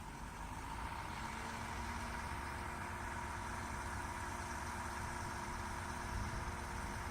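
An engine running steadily, with a constant whine over a low rumble.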